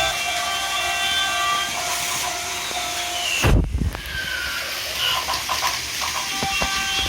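Plarail toy trains running on plastic track, a steady whir with clicking from the wheels, under electronic sound effects from the layout that hold steady tones. A dull thump about three and a half seconds in briefly cuts through, after which the tones come back near the end.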